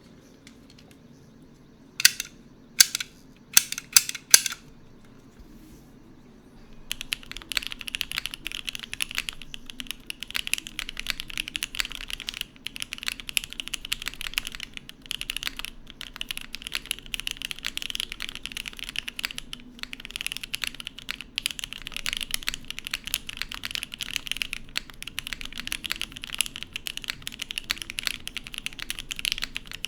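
Typing on a Matrix 8XV 3.0 custom mechanical keyboard with lubed and filmed Gateron Cap V2 Yellow linear switches in a top-mounted carbon fibre plate with no dampening, under GMK keycaps. A handful of separate loud key strokes comes about two seconds in, then after a short pause a steady run of fast typing begins and continues.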